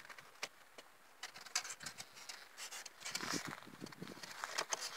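Wooden beehive being opened by hand: the OSB cover board lifted off and the hive parts handled, giving scattered clicks, knocks and scraping of wood. The clicks are thickest in the second half.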